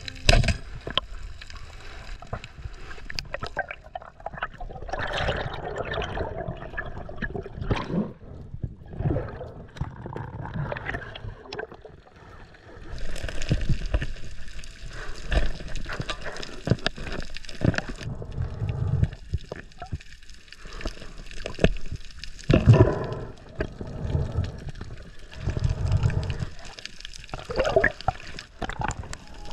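Underwater camera audio: water gurgling and sloshing around the camera housing, with irregular knocks and swells as the diver moves.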